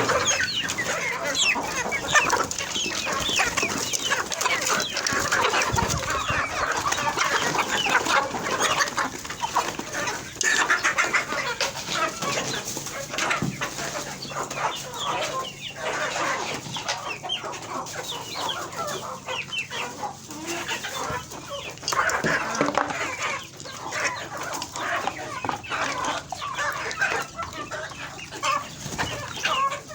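A flock of chickens clucking continuously, many birds calling over one another.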